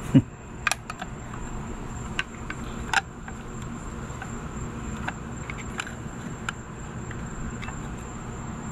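Scattered clicks and light knocks of a screwdriver and metal parts being worked on an outboard lower unit's water pump housing, the loudest a knock just after the start. Under them runs a steady high-pitched chirring of insects.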